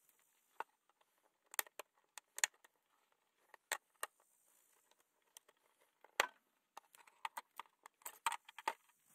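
Irregular sharp clicks and clacks of a screwdriver and small metal hose parts handled against a plastic table, as the old crimped ferrule is worked off an LP gas hose fitting.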